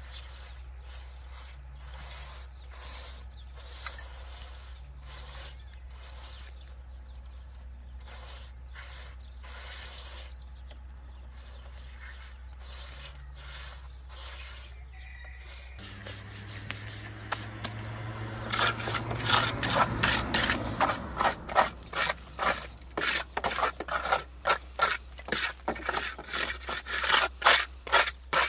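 Soft rubbing and scraping as a gloved hand smears wet mud plaster onto a wall. About halfway through, a trowel starts scraping over plaster in loud, quick, repeated strokes, about two to three a second.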